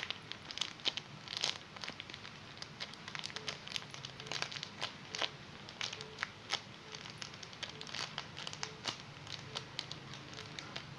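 Irregular crinkling and crackling of a squishy toy and its clothes being handled and taken off.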